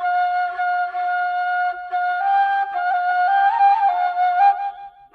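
Solo ney flute playing a slow melody of long held notes with small ornamental turns, breaking off briefly near the end.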